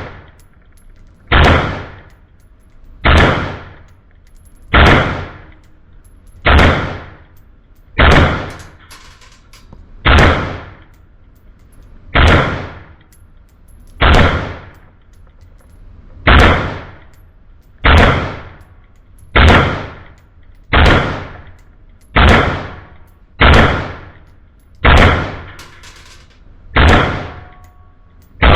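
Ruger AR-556 semi-automatic rifle in 5.56 NATO fired in slow, steady single shots, about sixteen, one every one and a half to two seconds, each crack followed by a short echo.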